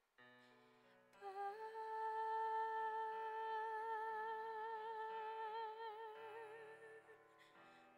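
A woman singing one long held final note with vibrato that widens as it goes, over sustained instrumental accompaniment chords; the note comes in about a second in and fades out about seven seconds in, leaving the accompaniment.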